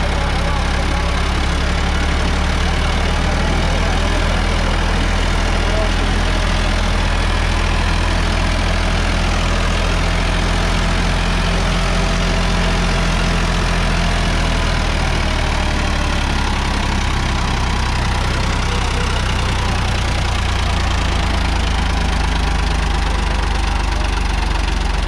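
Sonalika DI-35 tractor's three-cylinder diesel engine running steadily under load as it pulls a disc harrow through soil, with a diesel clatter.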